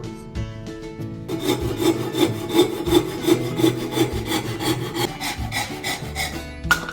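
Hand saw cutting through a piece of oak in quick, even strokes, about four a second, starting about a second in.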